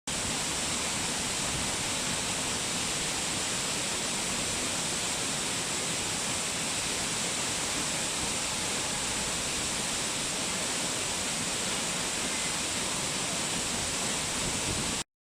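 Waterfall rushing, a steady, even roar of falling water that cuts off suddenly near the end.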